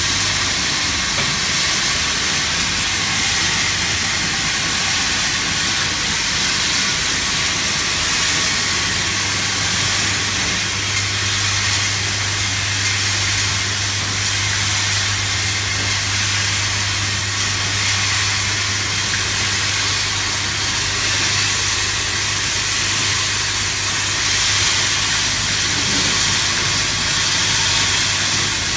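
Industrial machinery on an inkjet marking line running continuously: a steady loud hiss with a low hum underneath.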